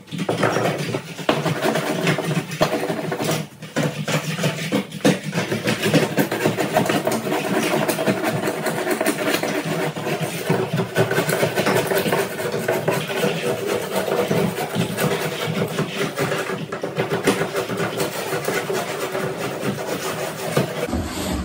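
Loud, steady mechanical noise like a running motor, starting suddenly and keeping on, with a brief dip about three and a half seconds in.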